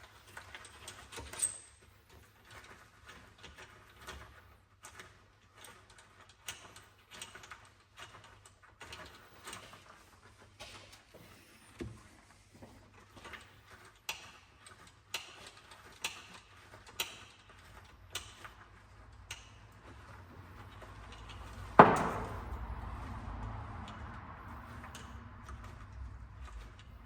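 Small clicks and knocks of metal tools and engine parts being handled, then one loud metallic clank about three-quarters of the way through, followed by a low rumble.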